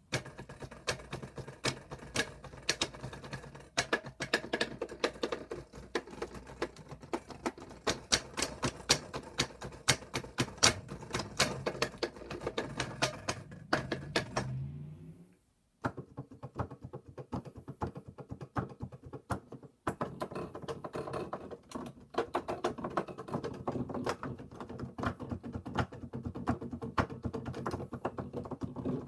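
Loud key click noise from the keys of an Alesis QS7.1 synthesizer keyboard being played: a fast, dense run of clacks. After a short pause about halfway through, the keys of a Roland XP-80 keyboard clack in the same way.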